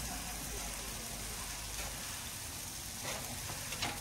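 Oil sizzling steadily on a hot flat griddle (tawa) under a frying masala-coated fish, with masala sauce poured over it. A couple of short, sharp clatters near the end.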